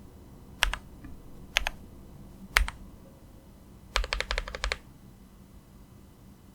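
Keychron Q8 mechanical keyboard being typed on: three single keystrokes about a second apart, then a quick run of about eight keystrokes near the middle.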